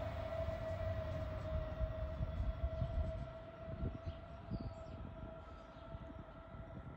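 DB Class 423 S-Bahn electric train running past and receding: a steady whine that sinks slightly in pitch over a low wheel rumble, which fades after about three seconds.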